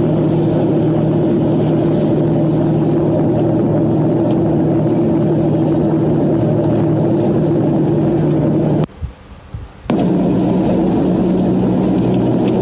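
A bus engine drones steadily in the cabin, a low even hum with no breathing rhythm. It breaks off for about a second shortly before the 9-second mark, then resumes slightly higher in pitch.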